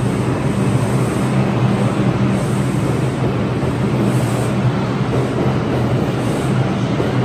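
New York City Subway R142 train moving along the platform: a steady rumble of wheels on rail with a low, even hum.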